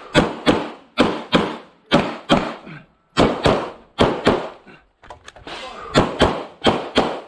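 Rapid string of Glock pistol shots fired at targets, mostly in quick pairs, about a dozen and a half shots with two short pauses.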